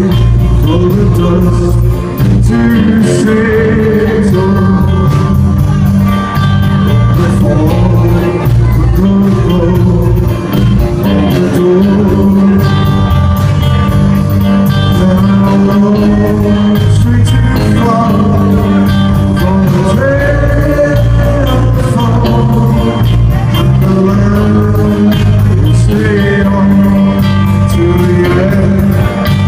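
Live rock band playing loudly: electric guitars, bass guitar and drum kit together.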